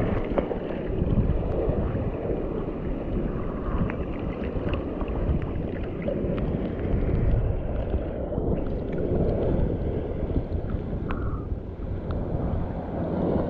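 Wind buffeting the microphone over water sloshing around a person wading in the shallows, with a few faint clicks.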